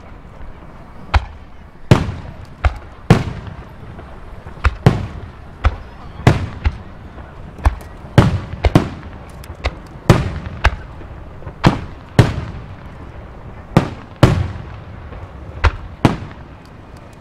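Aerial fireworks shells bursting in quick, uneven succession, one to two sharp booms a second, each trailing off in an echo.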